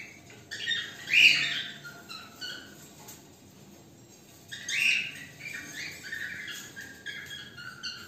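Week-old cockatiel chick's harsh, hissy cheeps, the begging call of a young chick. A loud cluster comes about a second in and another at about four and a half seconds, with shorter calls in between and a brief quiet spell.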